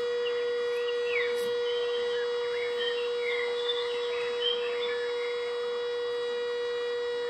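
Birds chirping in short sliding calls, heaviest in the first few seconds, over a continuous steady tone with a hum-like ring.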